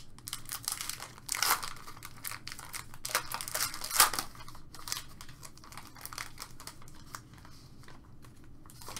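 Trading card pack wrapper being torn open and crinkled by hand, in irregular rustles that are loudest about a second and a half in and again about four seconds in, then quieter handling.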